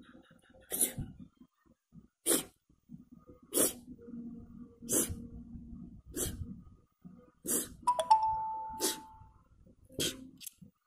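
A child making short, sharp breathy puffs or hisses close to the phone's microphone, about nine of them, one roughly every second and a half, with a faint murmur between them. A single short bright ding rings out about eight seconds in.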